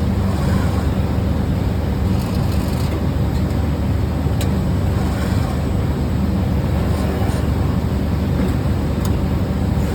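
Filament spooling machinery running steadily: a continuous low hum and rumble with a few faint ticks.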